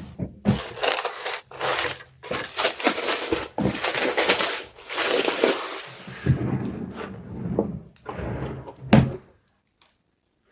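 Packing materials being handled: a busy run of rustling and crinkling, ending in one sharp knock about nine seconds in.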